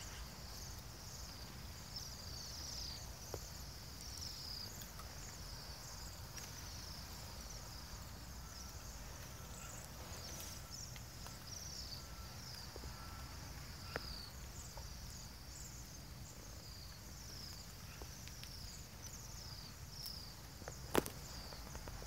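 A feeding flock of waxwings giving many high, thin trilling calls that overlap without pause. A faint low rumble lies beneath, and a single sharp click comes about a second before the end.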